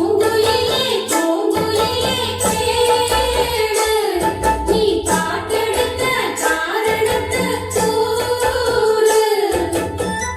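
Tamil film song playing through B&W 805 bookshelf speakers: long-held, gliding vocal lines without clear words over bass and percussion.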